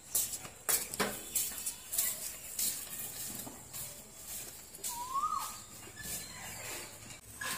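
Footsteps on concrete steps, a series of short sharp steps roughly every half second that thin out as the walker moves away. A brief chirp that rises and falls in pitch a little after five seconds in.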